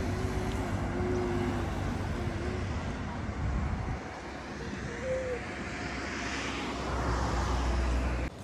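Engine noise of a passing vehicle: a broad rushing sound that swells in the second half and cuts off abruptly at the end.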